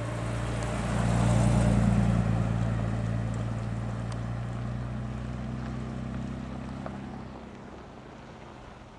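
Jaguar E-Type's straight-six engine running at low speed as the car drives past, a steady note that is loudest about a second and a half in and fades as the car pulls away.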